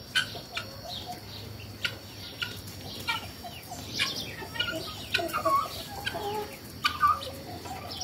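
Domestic fowl clucking and calling in scattered short notes, with a few sharp clicks among them.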